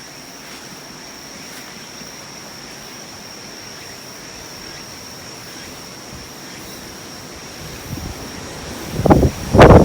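Typhoon wind: a steady hiss under a faint high steady tone, then from about eight seconds in strong gusts buffet the microphone in loud, irregular blasts.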